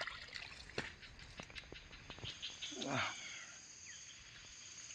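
Handling noise of a fish being put into a wire-framed mesh keep net: light clicks, ticks and rustles over a steady high insect drone. About three seconds in comes the loudest sound, a short falling sweep from high to low.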